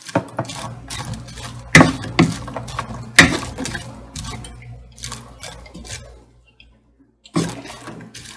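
A cooking utensil stirring and knocking against a frying pan, with sharp clinks about two seconds in, around three seconds, and once more near the end.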